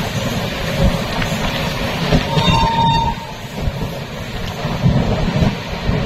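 Wind buffeting the microphone at the open door of a moving passenger train, over the train's running noise as it gathers speed. A short high tone sounds about two and a half seconds in.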